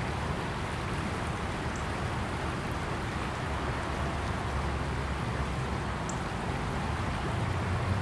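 Steady rushing of a small, fast river flowing over shallows, with a low rumble underneath that grows stronger near the end.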